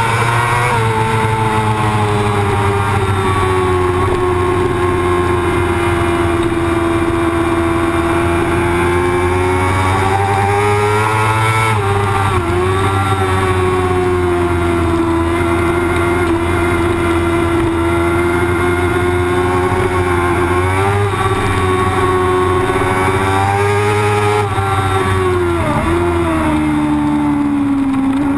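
Racing motorcycle engine held at high revs, heard from an onboard camera. The pitch stays fairly level through long sweeping corners, and dips briefly and climbs back about 12 seconds in, again near 21 seconds and near 26 seconds.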